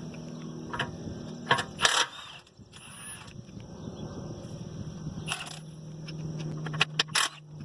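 A cordless impact wrench and loose lug nuts working on a tractor's rear dual wheel: several short sharp metallic clanks and brief bursts, spread out with gaps between them, over a steady low hum.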